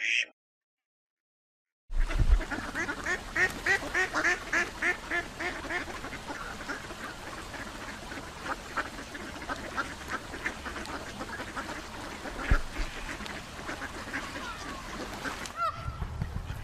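Ducks quacking: after a moment of silence, a quick run of repeated quacks starts about two seconds in and slows, then scattered single quacks over a steady background hiss.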